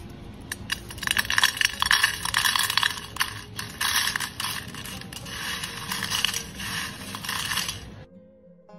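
Crisp fried banana chips poured onto a ceramic plate: a dense clatter of many light, brittle slices hitting the plate and each other. It cuts off suddenly about eight seconds in.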